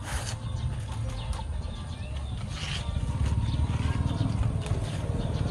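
Strips of young palm leaf rustling and being cut with a knife, over a low rumble that grows louder about three seconds in.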